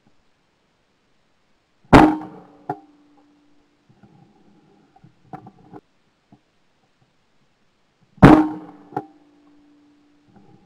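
Two shotgun shots from close up, at clay targets and about six seconds apart. Each sharp report is followed by a short ringing tone and a fainter crack under a second later, with a few faint clicks between the shots.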